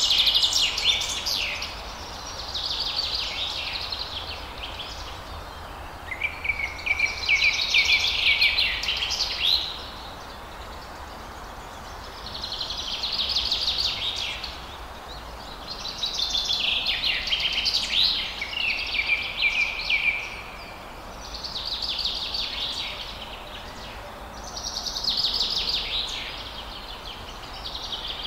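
A bird singing: about eight phrases of rapid high notes, each one to four seconds long, with short pauses between them, over a steady faint background hum.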